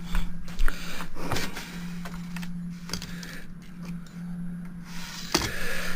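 Scattered light clicks and scrapes of a metal screwdriver working at a small screw on a crystal regulator clock, a tip too big for the screw head, over a steady low hum. The sharpest click comes near the end.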